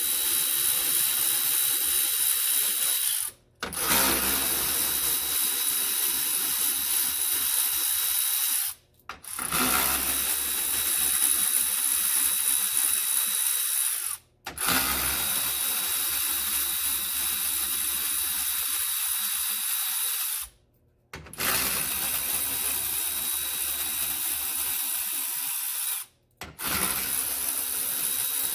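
Power tool with a 10 mm socket running in long steady stretches, backing out the grille bolts, with several abrupt breaks between them.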